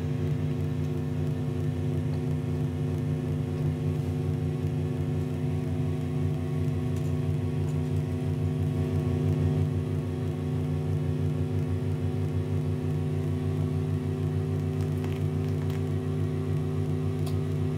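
Circuit-bent VHS video recorder's noise output: a steady electronic drone made of several stacked low tones, with a fast flutter running through it.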